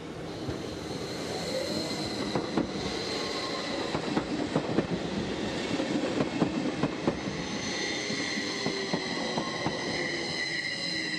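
SBB class 514 double-deck electric commuter train rolling through the station, its wheels squealing in steady high tones and clicking over the track joints. The sound cuts off suddenly at the end.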